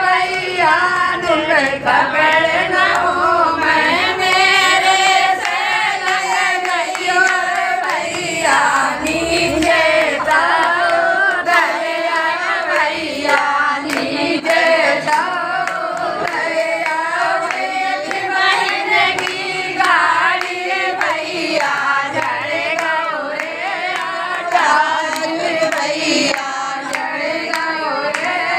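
A group of women singing a bhat geet, a folk wedding song, together, keeping time with hand claps.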